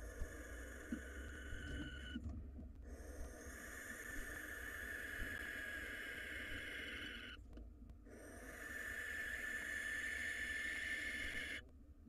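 Barn owl giving three long, harsh hissing screeches with short breaks between them, the middle one the longest.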